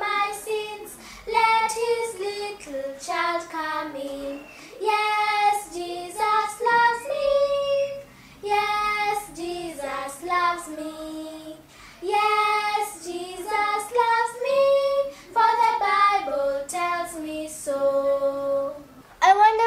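Two young girls singing a gospel song unaccompanied, in sung phrases broken by short pauses for breath.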